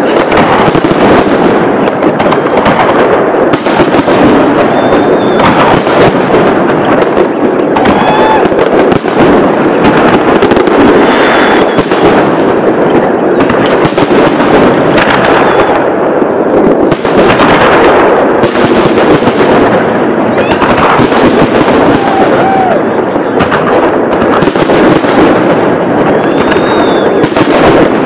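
New Year fireworks display: a loud, dense, unbroken barrage of many fireworks bursting and crackling together.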